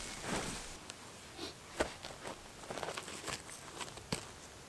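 Boots scuffing through dry leaf litter and soil, then a few sharp knocks and light scrapes of stones being set down on bare dirt.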